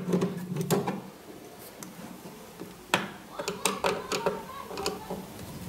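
Hand screwdriver unscrewing the screws that hold a drawer to its runner: scattered light clicks and scrapes of the tool and screw, with a sharper click about three seconds in and a few more just after.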